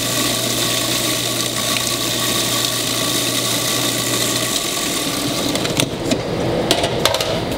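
Food processor motor running steadily, its blade chopping onion, green pepper, pepperoncinis and a whole lemon into a fine mince. The motor stops about four and a half seconds in, followed by a few clicks and knocks near the end.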